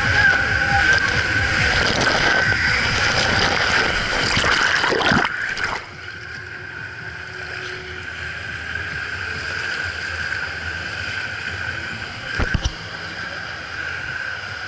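Water rushing through an enclosed water slide tube as the rider slides down, ending about five seconds in with a splash into the run-out channel. After that, a quieter steady hall background with one low thump near the end.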